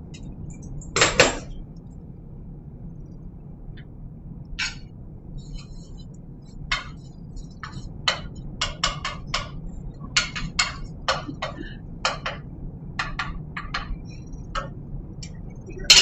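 Kitchen shears cutting open a plastic package of ground turkey, a short loud crinkling snip about a second in. Then irregular sharp clicks and taps at the stovetop pan where sage is frying in olive oil, over a low steady hum.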